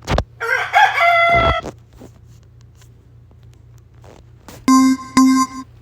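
A rooster crowing once, a recorded sound-effect preview, followed near the end by two short steady electronic tones.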